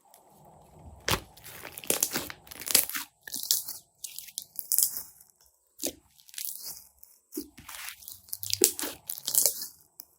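Slime being worked, crackling and squelching in irregular bursts with small pops between them.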